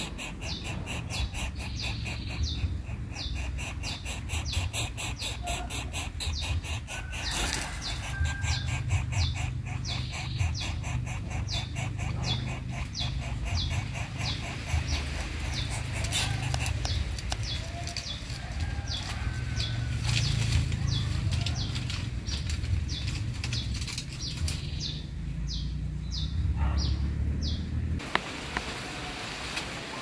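Rustling and wing-flapping of an adult coucal moving at its nest of dry bamboo leaves, with a sharp rustle about seven and a half seconds in, over a steady low rumble. A fast, high repeated chirping runs underneath and stops shortly before the end.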